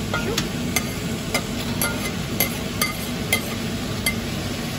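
A knife clinking sharply against a plate about eight times, roughly twice a second, as sliced onion is scraped off it into a pot, over the steady sizzle of pork belly frying in the pot.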